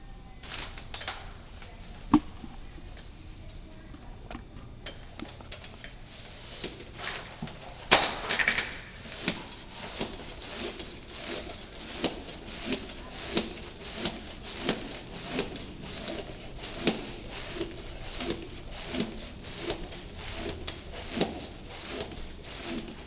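Bicycle hand pump inflating a tyre through a Presta valve. After light handling noises and a sharp click about eight seconds in, it settles into steady pump strokes, about three every two seconds, each with a hiss of air.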